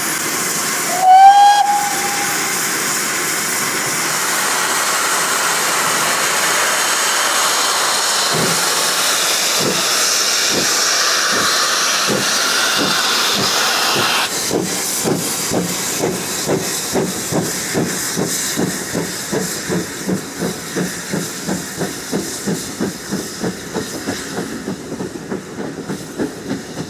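Steam locomotive's safety valves blowing off with a steady loud hiss, the sign of a full head of steam in a hot boiler. A short whistle blast about a second in is the loudest moment. About halfway through the hiss stops and the engine pulls away with regular exhaust chuffs, about two a second, fading as it leaves.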